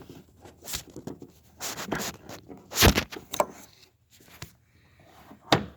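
Clicks and scraping of plastic as a headlight bulb's retaining clip is pushed out and the bulb is worked free of its connector. There is a sharp click about three seconds in and another near the end.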